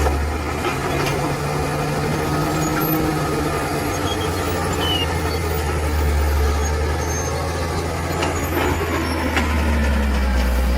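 Bulldozer's heavy diesel engine running steadily, with a few faint clanks.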